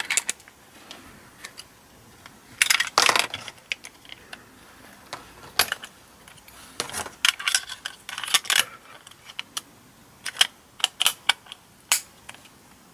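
Plastic parts of a Raspberry Pi case being handled and clipped together: scattered sharp clicks and small plastic knocks and rattles, in irregular clusters, the loudest about three seconds in.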